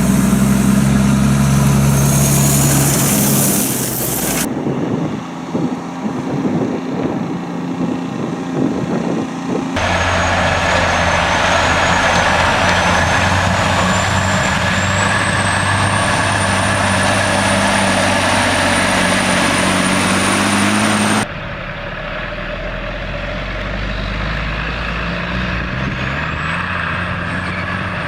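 Logging truck engines running steadily, in several shots joined with abrupt changes in the sound about 4, 10 and 21 seconds in; some shots carry a thin high whine.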